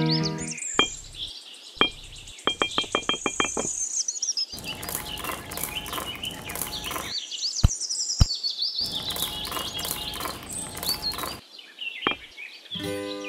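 Small birds chirping and tweeting throughout, over clicks and rattling of small pebbles being set in place by hand, with a quick run of clicks early on and two longer stretches of rattly clatter.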